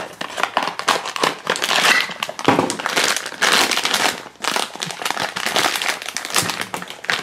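A foil blind bag crinkling loudly as it is handled and pulled open, with small cardboard box sounds as the box is opened; an irregular run of dense crackles and clicks.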